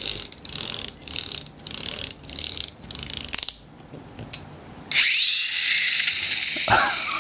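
Darda toy car's pull-back spring motor being wound with quick back-and-forth strokes, a rasping ratchet at about three strokes a second. About five seconds in it is let go and the motor spins up into a loud, high whir that winds down near the end.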